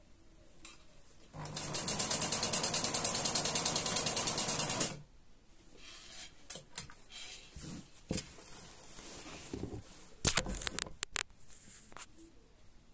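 Sewing machine stitching at a rapid, even rhythm for about three and a half seconds, then stopping. Scattered clicks and knocks follow, with a quick cluster of sharp clicks near the end.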